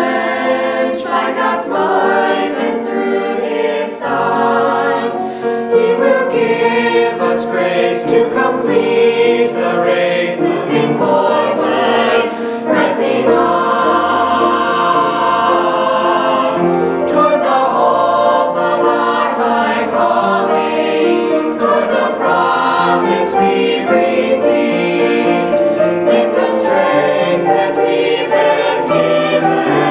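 Mixed choir of young men and women singing a hymn together, with sustained chords; lower voices join in about four seconds in.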